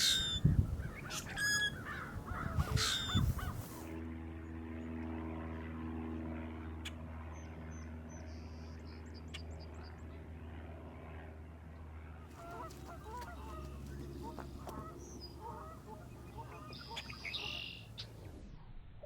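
Common grackles calling, with harsh, squeaky, grating calls loudest in the first few seconds. After that a steady low hum runs underneath, with faint high chirps and another squeaky call near the end.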